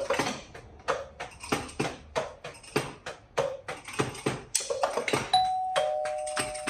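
Drumsticks tapping the rubber pads of an electronic drum kit in a steady beat. About five seconds in, a two-note ding-dong doorbell chime sounds, high then lower, with both notes ringing on.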